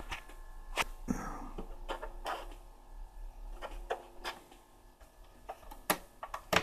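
A Panasonic RX-FS60 radio cassette recorder giving off a faint steady mains buzz through its speaker, the only output from the faulty set: its switches and controls produce no radio or tape sound. Several sharp clicks come from the set being handled.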